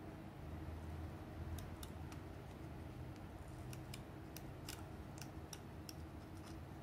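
Faint, irregular small clicks and ticks as fingers handle adhesive grip tape and press it onto the plastic shell of a gaming mouse, over a low steady hum.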